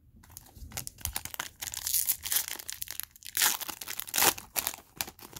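Foil wrapper of a Panini Prizm Draft Picks baseball card pack crinkling and tearing as it is ripped open by hand. It makes a dense run of crackles with louder flurries about two, three and a half and four seconds in.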